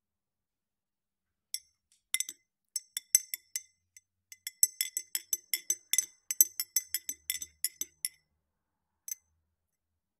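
Metal teaspoon stirring tea in a ribbed glass tumbler, clinking rapidly against the glass in a quick run of short ringing clinks. It ends with one last clink about a second after the run stops.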